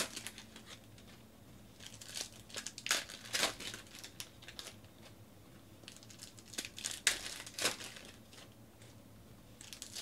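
Plastic wrappers of Panini NBA Hoops card packs crinkling and tearing as they are opened by hand, in two bouts of crinkling about two seconds in and about seven seconds in.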